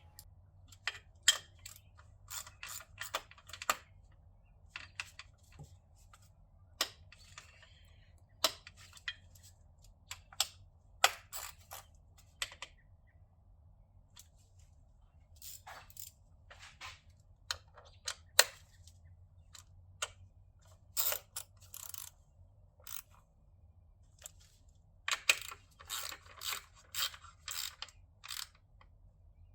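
Irregular sharp clicks and clacks, some single and some in quick clusters, over a faint steady low hum.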